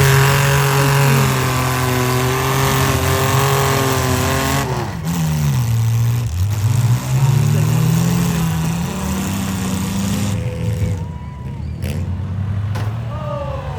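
Six-cylinder demolition derby car engines running hard and revving; about halfway through the engine pitch drops sharply and then climbs again.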